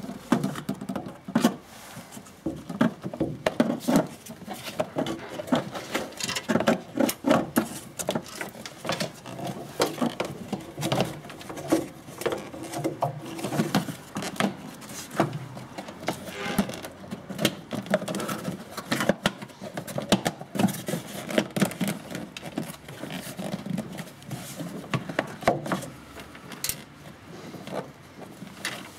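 Hard plastic cowl panel of an Opel Corsa C being handled and pressed into place below the windscreen: a fast, irregular stream of plastic clicks, taps and knocks.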